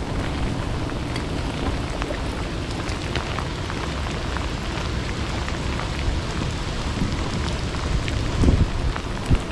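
Steady downpour: a hiss of rain with many small drop ticks, over a low rumble.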